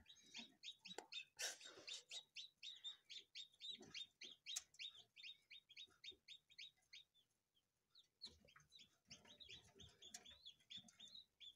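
Newly hatched chicken chicks peeping: a faint, quick run of short, high, falling chirps, with a short break about seven seconds in.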